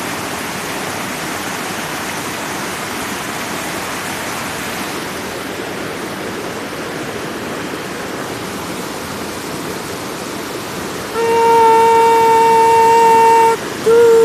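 A steady rushing noise. About eleven seconds in, a loud horn blast at one steady mid pitch sounds for about two and a half seconds, breaks off, and starts again just before the end.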